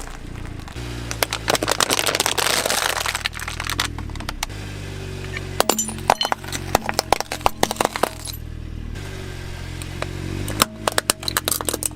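Toy cars and a toy excavator clattering, many quick hard plastic and metal clicks and knocks in bunches, over steady low tones.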